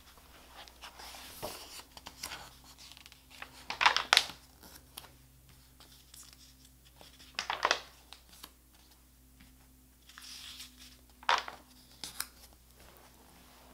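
Pages of a paperback picture book being turned by hand: soft paper rustling with three sharper swishes, about four, seven and a half and eleven seconds in.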